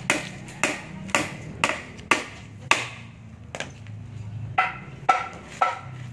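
Hammer blows driving nails into wooden boards, about two strikes a second, the later strikes ringing with a metallic ping.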